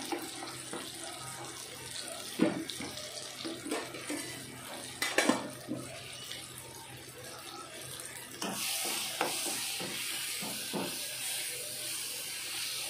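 Onion and tomato masala sizzling in oil in a non-stick pan, with a couple of light knocks. About eight and a half seconds in, the spices are stirred into the hot oil and the sizzle grows louder.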